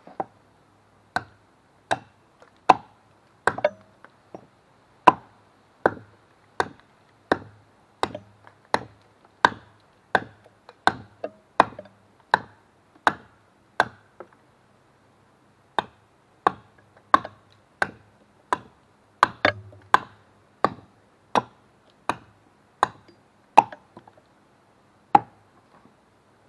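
Marbles Hudson Bay pattern hatchet chopping wood: a long, steady series of sharp strikes, a little more than one a second, with a short pause about halfway through.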